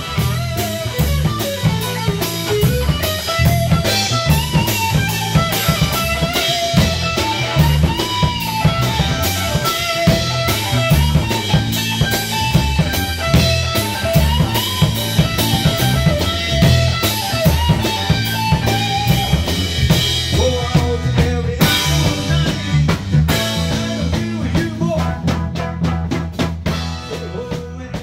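Rock band music: a drum kit keeps a steady beat under a wandering melodic lead line, easing off near the end.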